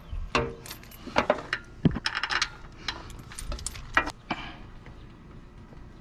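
Metal stabilizer chain and hitch hardware clinking and jangling as they are handled: a run of sharp metallic clinks with short ringing, dying away after about four and a half seconds.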